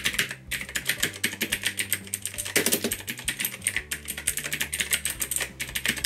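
Fast typing on a SROCKER Q700 mechanical keyboard with Chinese blue switches: a quick, continuous run of keystroke clicks with one heavier stroke about halfway through. The clicks are slightly damped, more like a brown switch than a typical blue switch.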